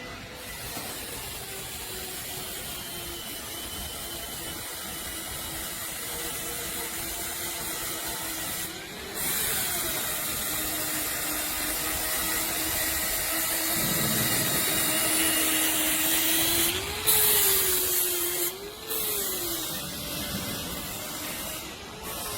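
Washing machine running: a steady hiss of rushing water over a low motor hum that wavers in pitch, broken by a few abrupt cuts.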